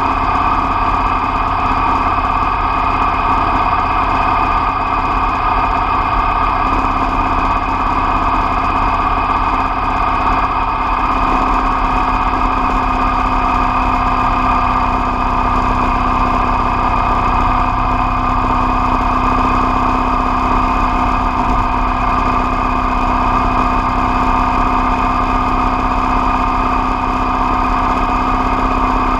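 Motorcycle engine running steadily at cruising speed, a low steady drone with a hum note that grows stronger about twelve seconds in.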